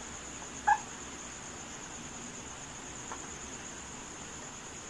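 Whiteboard marker writing on the board, giving one short squeak under a second in and a fainter one about three seconds in, over a steady high-pitched drone.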